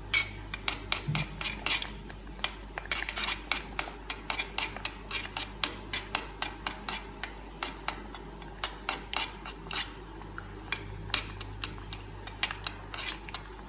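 Metal spoon stirring thick black bean sauce in a metal pot, clinking and scraping against the pot's sides and bottom in quick, irregular taps, several a second, as peanut butter is blended in.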